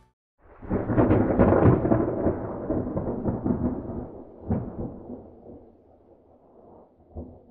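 Thunder: a loud peal breaks about half a second in and rolls away over several seconds. A sharper crack comes about four and a half seconds in, and a fainter one near the end.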